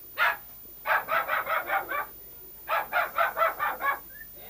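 A dog barking in fast runs: a single bark near the start, then two quick strings of about half a dozen barks each, roughly six a second.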